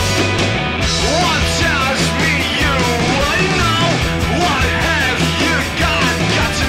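Loud rock background music with distorted guitar and a steady bass line.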